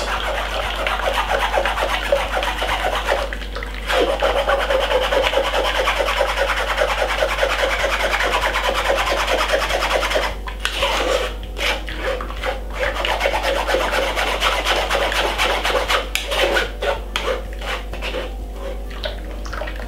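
Metal spoon scraping and rubbing against a fine-mesh metal sieve, pressing wet blended pineapple-apple pulp through so the juice drains and the fibre stays behind. It goes as fast back-and-forth scraping with a short break about three seconds in, then slower, separate strokes from about halfway.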